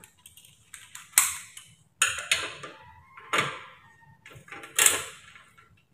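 Socket ratchet wrench with a 12mm deep socket clicking in several short bursts, about a second apart, as it works a bolt on a scooter's muffler.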